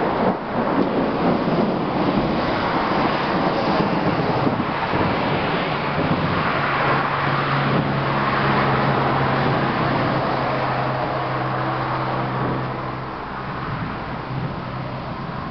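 A motor vehicle going by: steady road noise with a low engine hum through the middle, easing off near the end.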